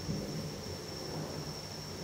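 Low rumble of distant thunder dying away, with a thin steady high-pitched whine throughout.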